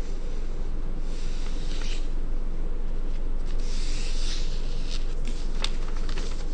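Sheet of origami paper rubbing and rustling as fingers smooth and crease its folds against a tabletop, with a few light taps, over a steady low background hum.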